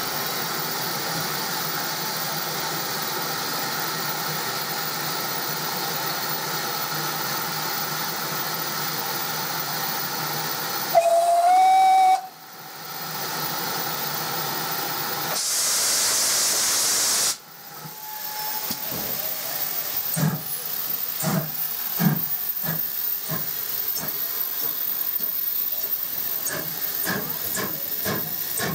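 GWR pannier tank locomotive 9600 standing in steam with a steady hiss. It gives a short whistle about eleven seconds in, then lets off a loud blast of high-pitched steam for about two seconds. It then starts away with slow exhaust beats, roughly one a second.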